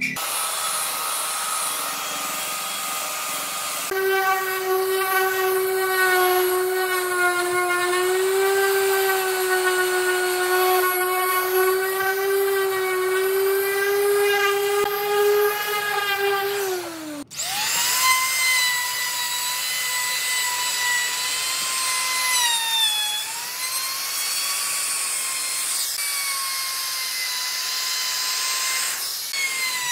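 Electric random orbital sander running with a steady hum that slides down as it is switched off. It is followed by a trim router running with a higher, steady whine that dips briefly partway through.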